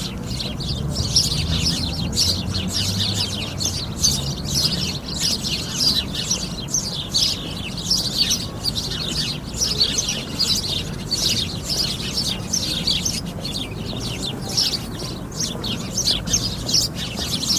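A flock of sparrows chirping continuously, many quick overlapping chirps at once, over a low steady background rumble.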